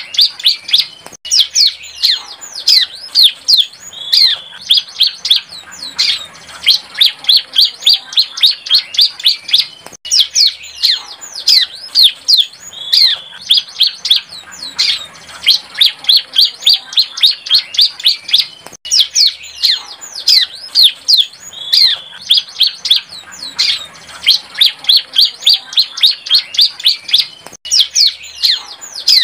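Bar-winged prinia (ciblek) song from a young bird learning to sing: fast runs of sharp, high chirps, many per second, broken by short pauses. The same passage seems to repeat about every nine seconds.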